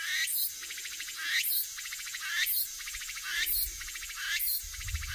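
Animal calls: a rising chirp repeating about once a second over a fast, high trill.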